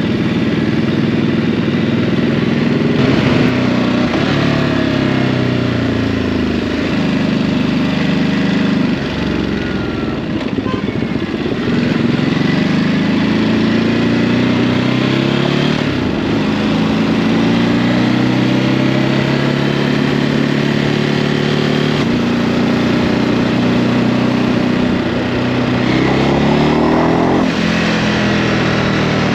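Ducati Hypermotard 950's L-twin engine through its stock exhaust, ridden on the road: the revs climb and fall again and again, stepping between gears, with a sharp rise near the end.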